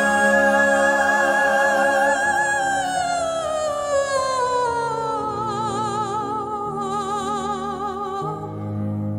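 Musical-theatre ballad: a soprano sings a wordless operatic line, holding a high note for a couple of seconds, then sliding slowly downward with wide vibrato over soft sustained accompaniment.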